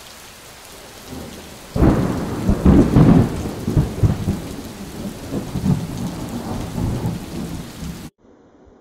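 Steady rain, then about two seconds in a loud thunderclap that rolls and rumbles for several seconds before the sound cuts off abruptly near the end.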